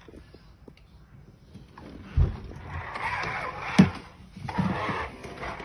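A plastic ride-on toy excavator being played with: a thump about two seconds in, then a whirring, rattling mechanical sound with a sharp plastic knock, which starts and stops twice.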